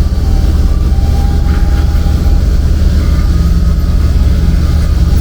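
A steady, loud low machine rumble, with a faint thin tone over it for the first couple of seconds.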